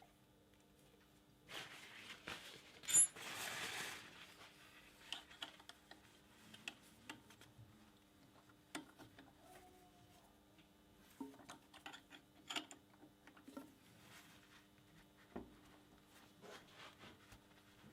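Small clicks and light taps of tools and parts being handled at a lathe, over a steady low hum. A short hiss runs from about a second and a half to four seconds in, with one sharp click near its middle.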